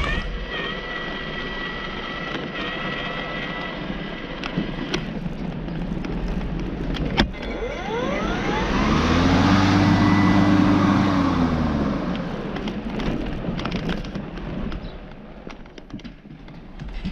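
A vehicle engine running. Near the middle it grows loudest, its pitch rising and then falling before it fades back.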